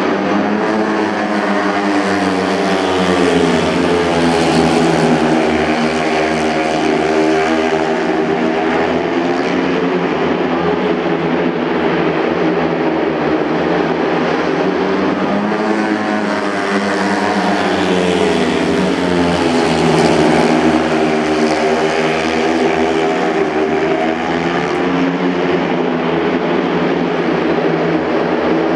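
A pack of speedway bikes' 500 cc single-cylinder methanol engines racing around the track, their pitch rising and falling as they sweep round the bends. The sound swells twice, about fifteen seconds apart, as the pack comes past nearest on each lap.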